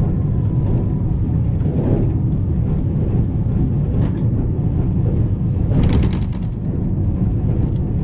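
Diesel locomotive running steadily as the train rolls along the track, a dense low rumble. A brief rush of noise about six seconds in.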